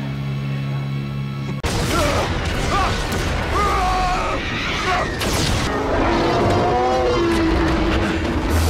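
Sustained low music notes, cut off abruptly about one and a half seconds in. What follows is battle sound effects: explosions booming over music, with gliding cries through the middle.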